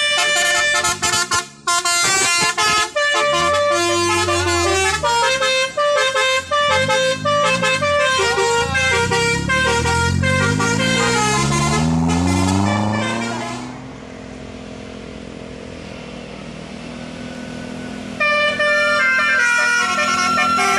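Bus telolet horns, a set of musical air horns, playing quick multi-note tunes. About two-thirds of the way in the horns stop for around four seconds, leaving a low steady hum, and then start playing again.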